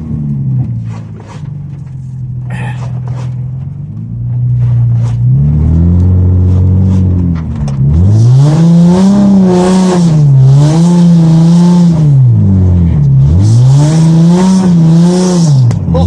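Nissan 350Z's 3.5-litre V6, heard from inside the cabin, held low for a few seconds and then revved up and down over and over, a rushing hiss at each peak, as the car fights for traction climbing a steep hill in deep snow.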